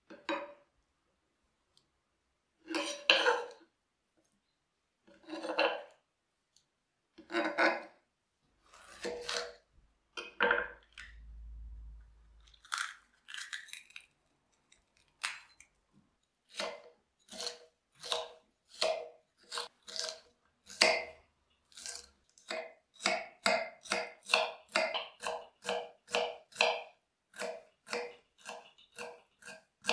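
A chef's knife dicing green bell pepper on a wooden cutting board, knocking on the wood with each stroke. A few separate knocks and scrapes come in the first ten seconds, then even chopping of about two strokes a second that quickens slightly toward the end.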